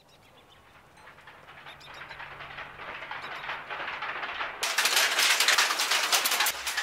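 Weaving looms clattering in a fast run of clacks. The clatter fades in from very quiet and turns suddenly louder and brighter a little past halfway.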